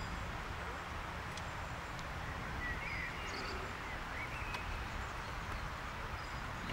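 Outdoor ambience: a steady low rumble and hiss, with a few faint, short high chirps around the middle.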